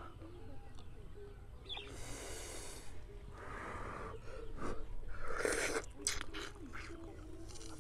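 Mouth sounds of a man eating steamed snake: several short noisy breaths and blowing, then slurping and smacking as he bites into the meat, with a few sharp clicks in the second half.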